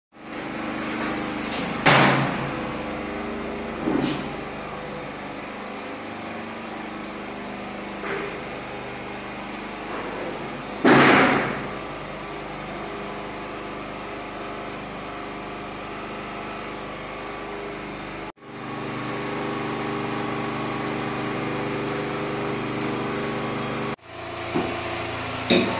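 A steady mechanical hum with a few sudden bangs: loud ones about two seconds in and about eleven seconds in, lighter knocks around four and eight seconds in. The sound cuts off abruptly twice, and the hum resumes a little changed.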